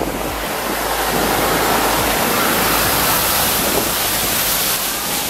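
Steady rushing spray of wheels ploughing through floodwater covering the road, with wind on the microphone; it swells after about a second as a van passes through the water, throwing up spray.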